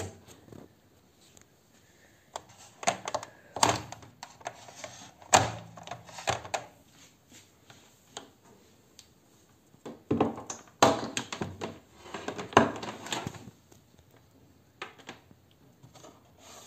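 Handling noise: two flurries of sharp clicks and knocks, hard plastic being touched and moved by hand, the first a couple of seconds in and the second about ten seconds in.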